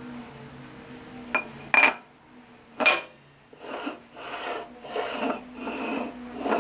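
Steel plate being handled on a lathe's steel bed: three sharp metallic clinks as it is set down, then short scraping strokes of metal sliding on metal, about twice a second.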